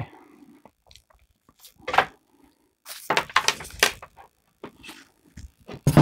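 Objects handled on a tabletop: knocks and rattling clicks as a microwave-oven transformer is shifted and a battery pack with wire leads and a small bulb is laid out. There is one knock about 2 s in, a cluster of clicks around 3 to 4 s, and a sharp knock near the end.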